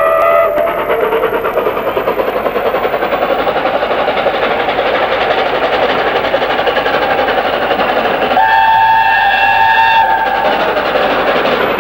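LNER A4 Pacific steam locomotive 4468 Mallard running at speed with a rapid exhaust beat and the rumble of its train. It sounds its chime whistle briefly at the start and again in a longer blast of about a second and a half, some eight and a half seconds in.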